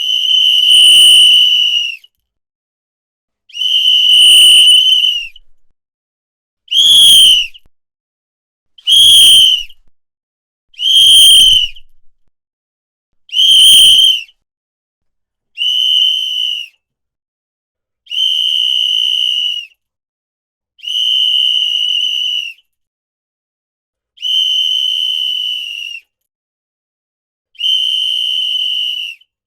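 A whistle blown in eleven separate high-pitched blasts, each a second or two long, with a pause of about a second between them. The first six blasts are louder and breathier; the last five are softer and steadier.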